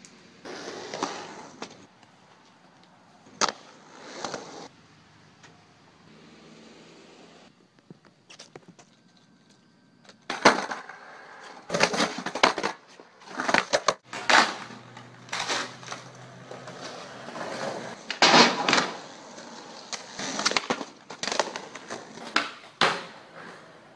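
Skateboard being ridden and used for tricks: repeated sharp clacks of the board popping and landing, with wheels rolling on pavement between them.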